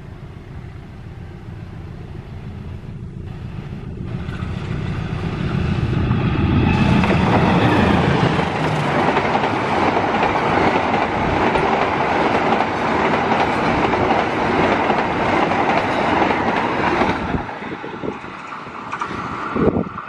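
Express passenger train behind a diesel locomotive, passing straight through at speed. The locomotive's low engine rumble grows as it approaches, then from about seven seconds in a loud rush of wheels on rail and air as the coaches pass close by, dropping away near the end as the train recedes.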